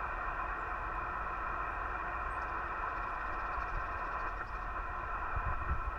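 Steady band noise hissing from a Yaesu FT-891 transceiver's speaker, receiving 20-metre SSB on 14.293 MHz with no station answering, heard through the narrow SSB passband.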